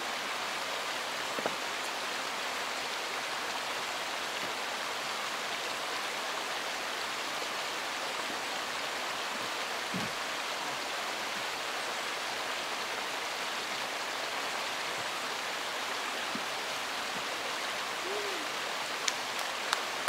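Steady rush of flowing creek water, an even hiss that does not change.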